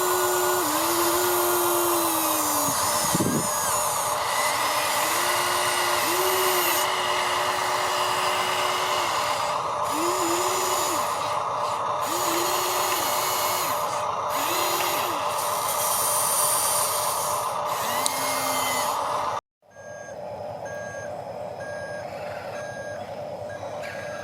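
Radio-controlled model construction machines: a steady simulated engine drone from the sound module, with electric motors whining in short bursts that each rise, hold and drop away. After a sudden cut about nineteen seconds in, a quieter stretch of evenly spaced electronic reversing beeps.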